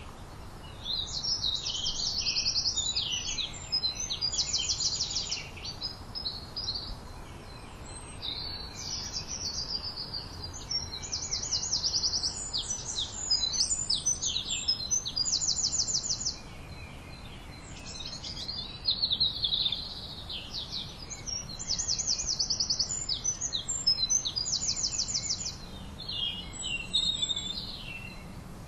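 Songbirds singing high, repeated phrases, many ending in fast even trills, in runs of a few seconds with short pauses between. A steady low background noise runs beneath.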